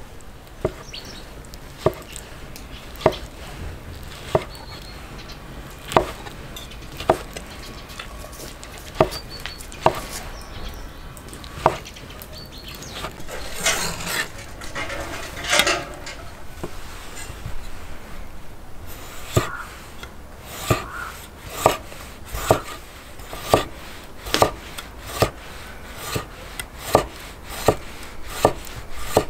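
Large kitchen knife chopping grilled lamb testicles on a thick wooden cutting board, with single sharp knocks about once a second. Around the middle the blade scrapes across the board as the chopped meat is gathered. In the second half pickled gherkins are sliced, with quicker, more even knocks of the blade on the wood.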